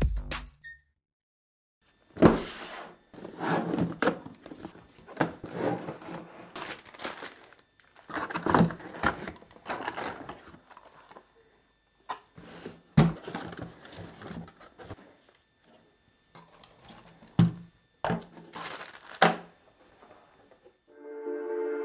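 Unpacking a cardboard box: irregular rustling and crinkling of cardboard and plastic packaging, with several sharp thuds as the contents are set down on a wooden table.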